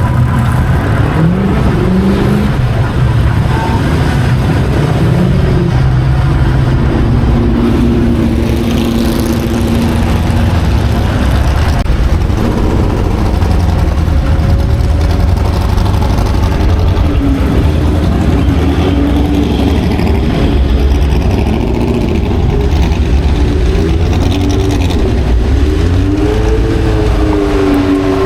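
Historic racing car engines running loud, their pitch rising and falling again and again as they rev and change gear.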